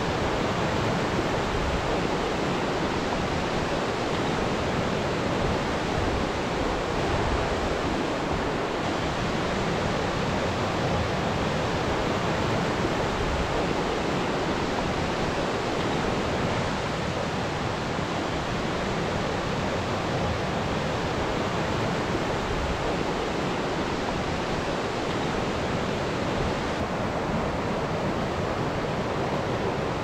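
Steady, unbroken rushing of Mantokha Waterfall's water pouring down a rock face, with a slight shift in tone near the end.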